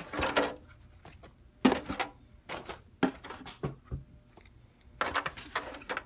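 Hands handling a clear plastic RC buggy body on its chassis in a cardboard box: irregular plastic clicks, knocks and rustles.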